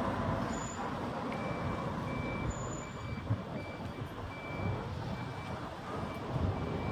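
Steady street traffic rumble with a high electronic beep repeating about every two-thirds of a second, starting about a second in.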